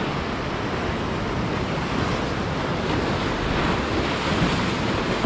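Ocean surf breaking and washing on the shore, a steady rushing noise, with wind on the microphone.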